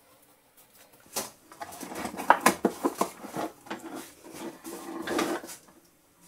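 Knocking and clattering of the Proxxon PD 250/e mini lathe being set down onto a solid granite base: a run of sharp knocks from about a second in, with a rougher scraping stretch near the end.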